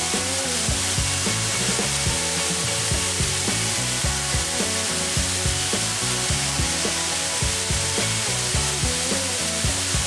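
Steady rushing of a waterfall, with background music with a steady beat underneath.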